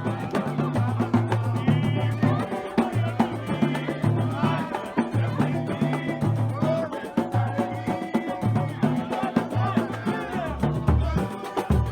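Samba band playing live: a stepping bass line under steady percussion clicks, with a melody above.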